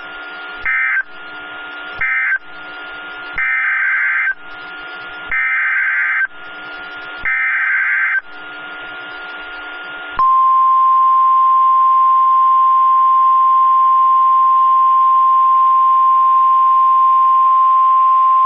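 NOAA Weather Radio alert data bursts: two short bursts of warbling digital tones, then three longer ones about a second long each, the SAME header for the next alert. About ten seconds in, the steady 1050 Hz warning alarm tone starts and holds, heralding a tornado warning.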